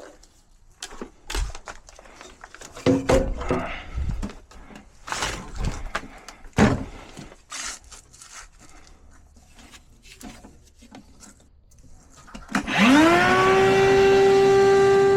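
Scattered clicks and knocks of tools and metal furnace parts being handled. Then, near the end, the gas furnace's draft inducer motor starts, its whine rising quickly in pitch and settling into a steady hum.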